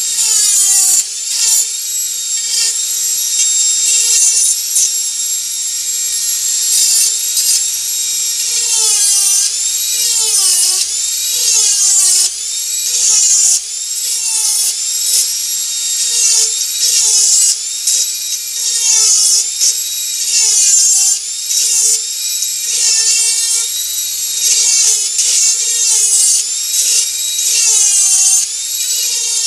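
Dremel 4000 rotary tool running at high speed with a burr cutting into wood: a high whine whose pitch sags again and again as the bit is pressed into the wood, then climbs back as it eases off.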